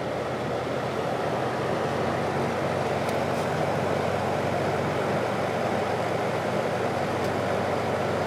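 1950s General Electric box fan running steadily in reverse: a whoosh of moving air over a low electric-motor hum. The motor is drawing more current than it is rated for.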